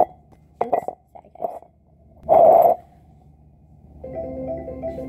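A short, loud burst of noise about two and a half seconds in, then from about four seconds in a phone ringtone starts playing a repeating marimba melody: an incoming call ringing.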